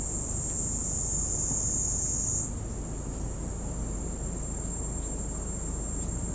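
Steady high-pitched insect chorus, a continuous shrill drone that steps up a little in pitch about two and a half seconds in, over a low background rumble.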